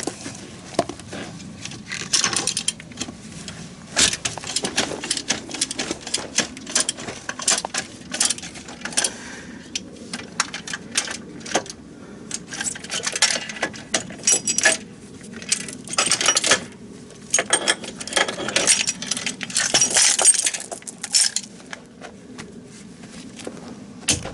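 Metal tools working on a rubber crawler track's bolted joint: irregular sharp metallic clicks and clinks, with several dense runs of rapid clicking a second or two long, like a wrench ratcheting.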